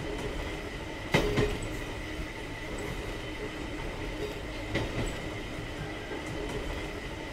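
Train running on rails: a steady rumble with a faint high squeal from the wheels, and clacks over rail joints about a second in and again near five seconds.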